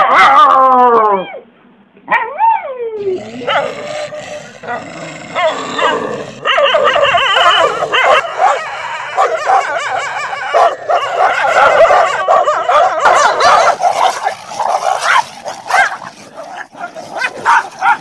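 A small dog howls in one long falling note, then gives a short rising-and-falling call. About three seconds in, two dogs fighting take over, with continuous snarling and growling broken by sharp yelps.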